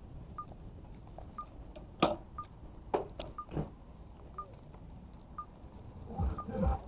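A short high electronic beep repeating about once a second, over a faint steady rumble. A few sharp knocks come about two to three and a half seconds in, and low thuds near the end.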